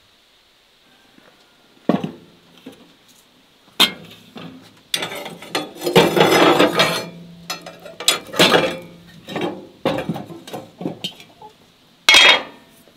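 Cast-iron stove-top rings lifted off a wood-fired stove with an iron hook and knocked against the hob, then a heavy cast-iron pan with its lid set down over the open burner. A string of metal clanks and scrapes, with sharp single clanks about two and four seconds in, a dense clatter in the middle, and a last loud clank near the end.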